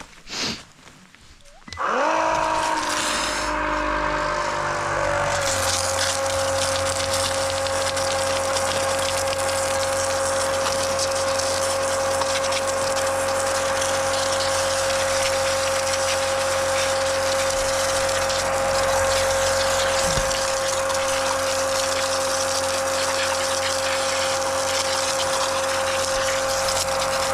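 A motor-driven machine starts about two seconds in, its whine rising in pitch over a few seconds, then runs steadily with one high whine over a rushing hiss.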